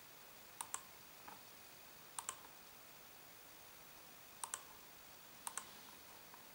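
Computer mouse button clicked four times, spaced a second or two apart. Each click is a quick double tick of press and release.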